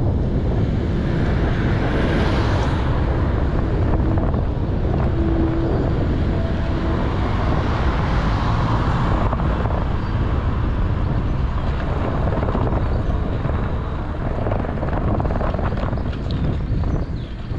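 Wind buffeting the microphone of a handlebar-mounted GoPro on a moving bicycle, over a steady rumble. Louder hiss swells up about two seconds in and again around eight to nine seconds.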